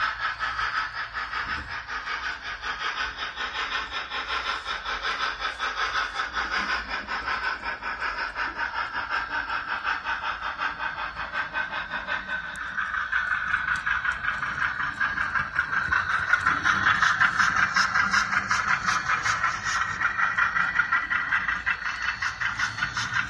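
HO scale model steam locomotive's sound decoder chuffing through its small speaker: a quick, even chuff with a hiss, running steadily. It grows louder about halfway through and is loudest a few seconds later.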